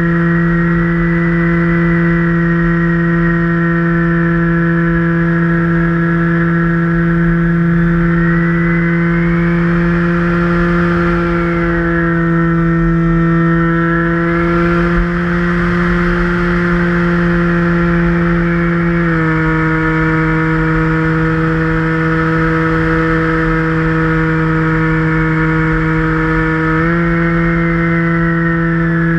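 Multiplex EasyStar RC plane's electric motor and pusher propeller running steadily, heard from on board as a whine made of several tones. A higher tone wavers up and down through the middle, and the pitch steps down about two-thirds of the way through, then back up near the end.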